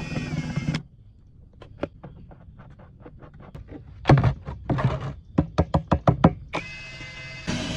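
Background music cuts off under a second in, leaving a series of light knocks and clicks, one louder thump about four seconds in and a quick run of about eight clicks in a second; the music with its steady tones comes back near the end.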